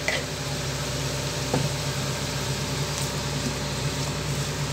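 Diced carrot and onion sizzling gently in a nonstick frying pan as they are stirred with a slotted metal spatula, over a steady low hum, with one light tap of the spatula about a second and a half in.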